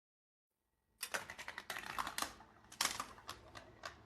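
Rapid clicking and clattering of plastic magnetic marble-run pieces, starting about a second in: a quick irregular run of sharp clicks.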